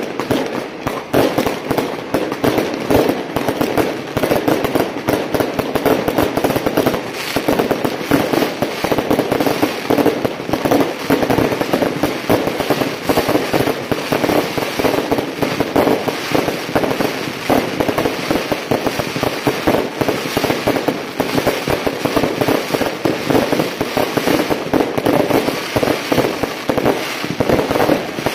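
Firecracker strings going off nonstop in a dense, rapid crackle of overlapping bangs, with no break.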